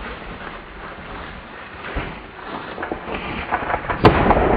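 Dry branches cracking and snapping, growing louder, as a charging Cape buffalo bull crashes through thorny sickle bush. A single loud rifle shot comes near the end.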